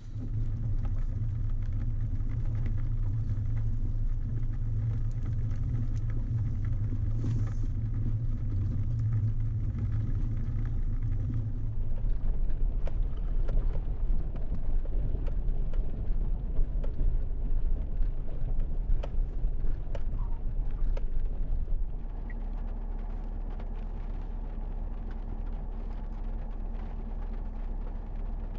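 Pickup truck driving, heard from inside the cab: a steady low engine and road rumble. It turns rougher with scattered knocks and rattles for several seconds in the middle, then settles to a quieter, steadier hum near the end.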